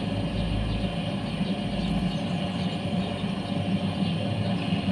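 Electric clipper-blade sharpening machine running with nothing on it, its motor giving a steady hum as the flat grinding disc spins.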